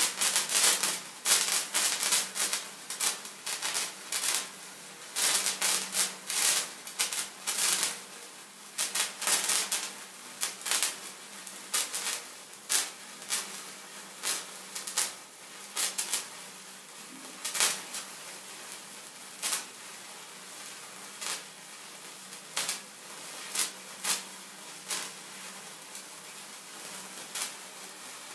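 Handheld sparkler burning: a steady fizz with sharp crackling pops, dense at first and thinning out to a pop every second or so in the second half.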